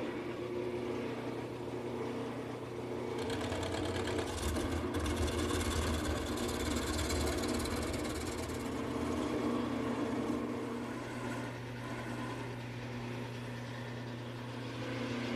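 Wood lathe running while a gouge roughs a rectangular mallet-shaft blank down to round: steady motor hum under the noise of the tool cutting the spinning wood.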